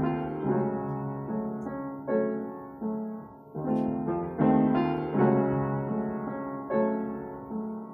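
Solo piano played with both hands: chords struck about once a second, each dying away before the next.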